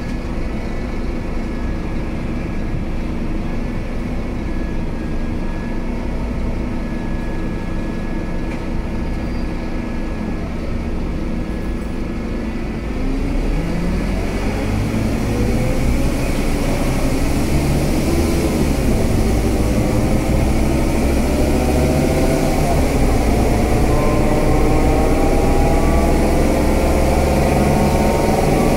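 Scania K320UA bus's diesel engine running steadily at a low, even note, then about halfway through the bus pulls away and the engine note climbs steadily and grows louder as it accelerates.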